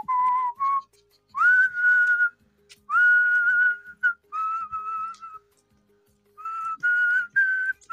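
A whistled melody of several held notes, some sliding up into pitch, over a faint repeating backing: background music.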